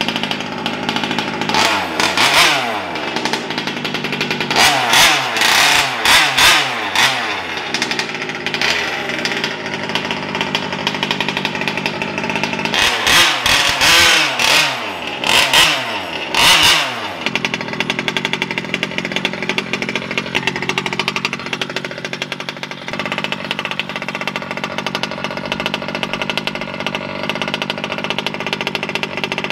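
Losi 5T's small two-stroke gasoline engine revved in short bursts through the first half, each rev falling away in pitch, then running steadily.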